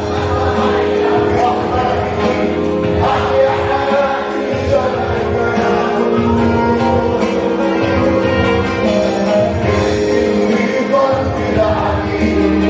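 A Christian worship song playing: steady band music with singing.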